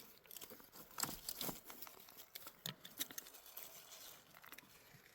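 Faint, irregular light taps and rustling, with a few sharper clicks in the first three seconds, dying away toward the end.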